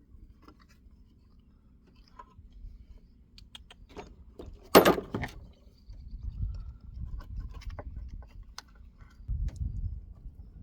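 Small metal clicks and clinks of hand work on a small-engine carburetor as its throttle linkage is worked free, with one loud sharp clatter about five seconds in and low handling rumble afterwards.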